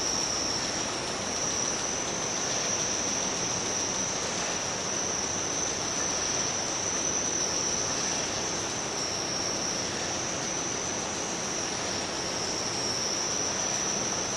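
Steady, dense hiss with a high whine that drifts slightly up and down in pitch, unbroken throughout.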